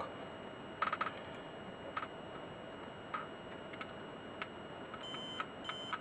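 A few faint clicks, then near the end a continuity tester beeps in short pulses as its probes bridge the contacts of a keyboard key switch: the switch is conducting and works.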